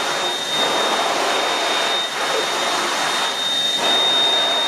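High-speed electric hand dryer blowing, a steady rush of air with a high whine on top. The sound dips briefly a few times, as hands move in the airstream.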